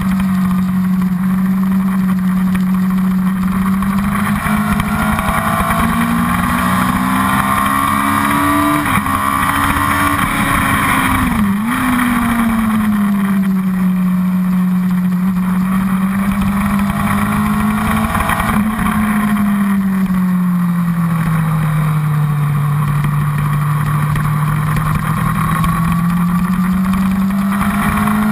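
Honda CBR1000RR's inline-four engine running hard on track, its pitch rising and falling slowly as the throttle changes. About a third of the way in the pitch dips sharply for a moment and picks up again.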